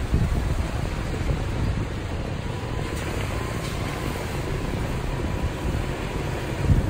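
A vehicle's engine and tyres rumbling steadily as it climbs a rough, unpaved mountain track, with a brief jolt just before the end.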